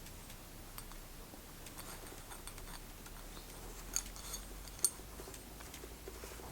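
Quiet room with a low steady hum and scattered faint light clicks, with two sharper clicks about four and five seconds in.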